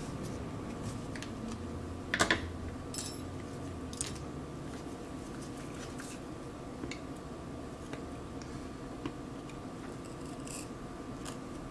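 Scattered clicks and scrapes of a metal tool working the bent aluminium corner of an iPad 6 housing to push the dent back out, the loudest click about two seconds in. A steady faint hum runs underneath.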